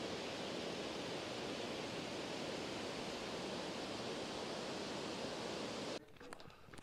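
Steady rush of a mountain waterfall, cutting off abruptly about six seconds in. A few faint footsteps on a gravel path follow.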